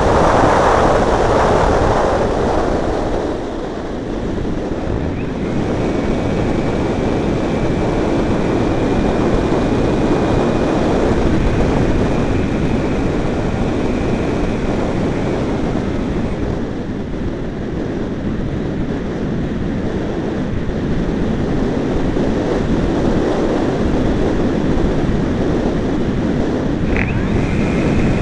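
Wind buffeting the microphone with a steady rumble. Behind it the faint high whine of a Multiplex Blizzard RC model plane's motor can be heard in flight, steady from about six seconds to fifteen seconds in and again near the end.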